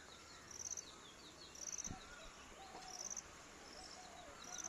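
Faint chirping: a short, high, buzzy trill repeating about every second and a quarter, with quick falling chirps in between. There is one brief low knock about two seconds in.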